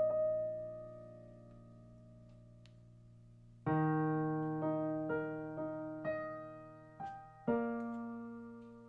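Background piano music: a note rings and fades, then after a quiet stretch a run of struck chords begins about four seconds in, the last one fading away near the end.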